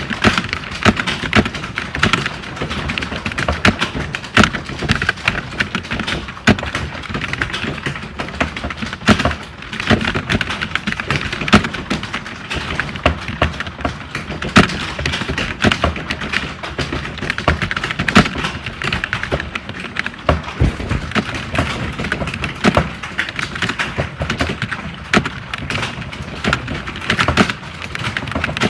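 Many computer keyboards typed on at once, a dense continuous clatter of overlapping key clicks with louder key strikes scattered through it: the sound of a typing-test hall.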